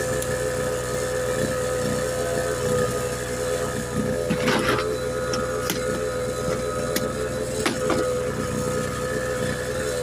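A motor running with a steady, even hum. A few short knocks and a brief scrape from tire-changing tools sound over it, the clearest about four and a half seconds in.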